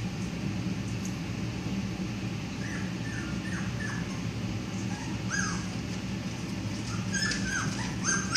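Three-week-old boxer puppies whimpering and yipping: short, high cries that fall in pitch, starting about three seconds in and coming thicker and louder near the end, over a steady low hum.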